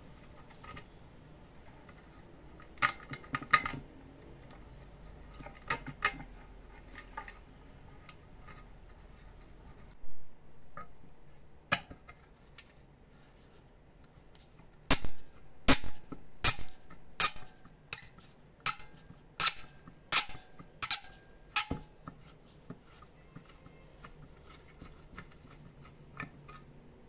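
Metal clinking and knocking of hand tools on metal parts. About halfway through comes a run of about ten sharp, evenly spaced strikes, about three every two seconds.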